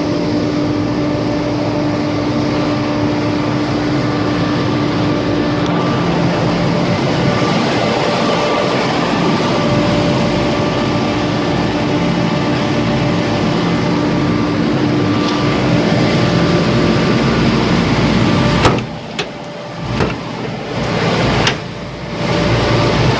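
Large cooling tower fan running: a loud, steady rushing drone with a low hum. Near the end the noise drops sharply for a few seconds, with a couple of knocks, then comes back.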